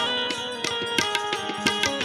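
Instrumental break in a Gujarati bhajan: quick tabla strokes under a held melody on a plucked-string or reed instrument.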